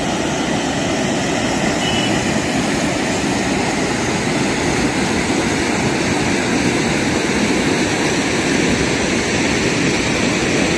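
Wind blowing across the microphone: a steady rushing noise with a restless low rumble.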